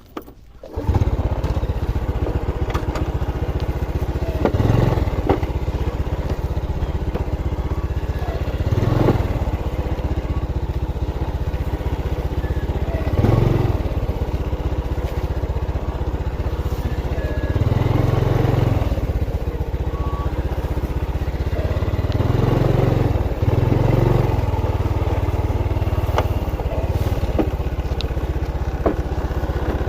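Motorcycle engine running steadily while riding, rising briefly with the throttle several times.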